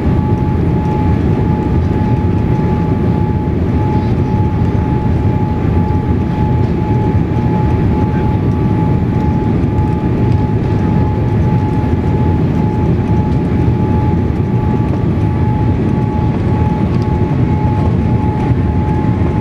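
Steady roar of a Boeing 787-8 Dreamliner's engines and rushing air, heard inside the cabin on final approach, with a thin steady high tone running through it.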